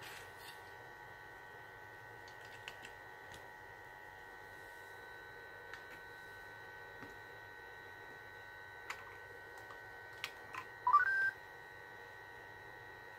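Faint steady high electronic whine with scattered small clicks, then about eleven seconds in a short electronic chirp that rises and holds a high note: the Sony AIBO ERS-11x robot dog's tone sound.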